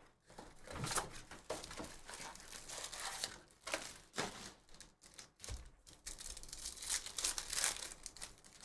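Foil trading-card pack wrappers crinkling in the hands in irregular bursts, with a pack being torn open.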